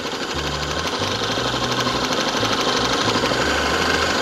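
Electric food processor motor running, its blade whirring through egg yolks as oil is streamed in to emulsify mayonnaise; the whir grows slowly louder.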